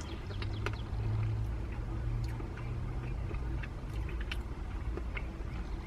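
Low steady hum of a car idling, heard from inside the cabin, with a few faint clicks.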